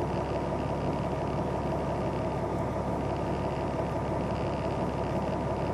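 Semi truck's diesel engine running steadily, heard from inside the cab as an even rumble.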